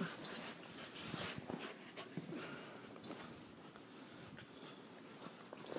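Two puppies play-wrestling: scuffling and rustling with several sharp knocks, and brief puppy whimpers.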